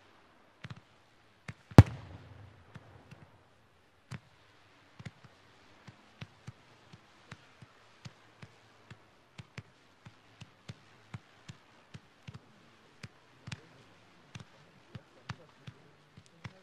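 Fireworks going off: one heavy boom about two seconds in, trailed by a low rumble, then a steady run of sharp reports, roughly two a second, as firework batteries fire shot after shot alongside large aerial shells.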